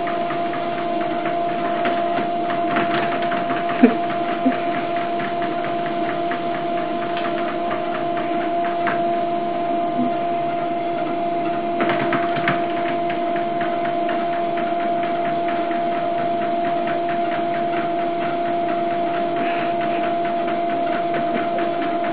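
Home treadmill running: a steady electric motor hum with a fast, even clicking from the moving belt. A few brief knocks stand out, about 4 seconds in and again near 12 seconds, as cats' paws land on the deck.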